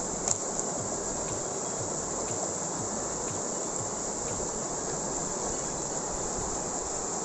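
Steady rushing of a fast mountain stream, with a sharp click about a third of a second in and a few faint knocks, like stones in gravel being handled.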